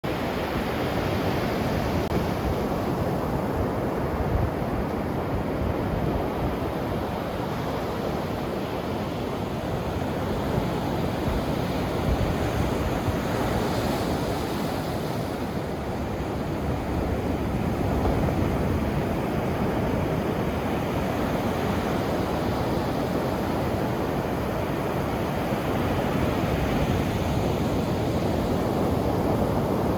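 Ocean surf: waves breaking and washing in continuously, a steady rush that swells and eases slowly in loudness.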